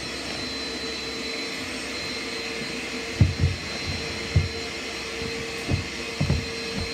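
Vacuum cleaner running steadily with a constant hum. From about three seconds in come several soft low thumps as hands press silicone fidget toys into a towel on the floor.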